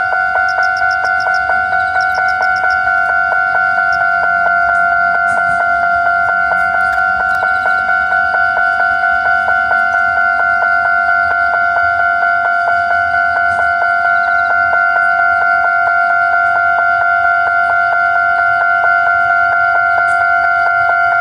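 Japanese railway level-crossing warning bell ringing on and on, an electronic two-tone clang repeating at an even, rapid beat. The crossing is stuck ringing: a lightning strike put its circuits out of order.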